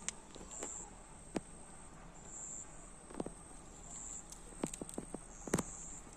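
A short high insect chirp repeating about every second and a half, with scattered light clicks and taps.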